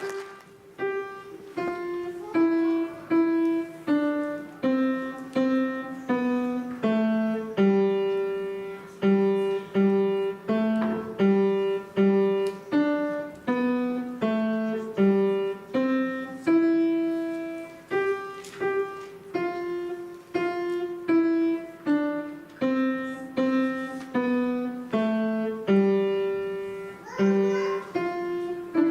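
Piano played solo: a slow, even melody of separate struck notes, each ringing and fading before the next.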